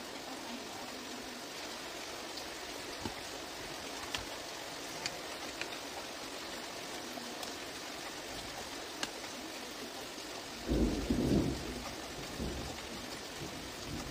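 Steady hiss with a few light plastic clicks as the plastic housing of a Bluetooth speaker is handled and fitted together, and a louder, low rumble lasting about a second, about eleven seconds in.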